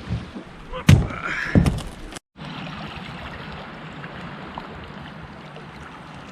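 Two loud hollow thumps about a second apart near the start, then, after a brief cut, a steady hiss of wind and water.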